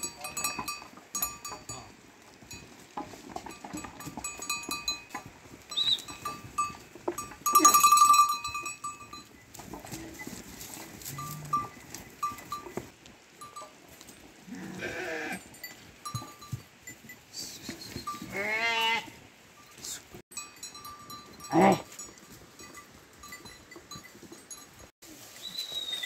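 A flock of sheep with bells on the animals clinking and ringing throughout. Several sheep bleat in among them, including one long wavering bleat about three-quarters of the way through.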